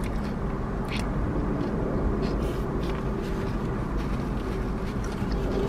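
Steady low rumble of a car, heard from inside the cabin, with a few faint light clicks.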